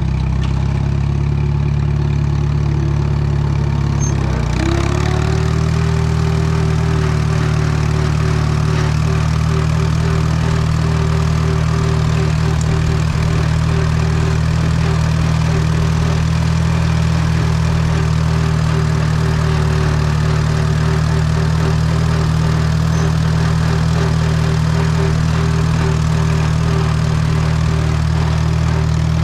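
Allis-Chalmers WD tractor's four-cylinder engine running steadily at a constant speed. About four seconds in, the engine note dips briefly and comes back up.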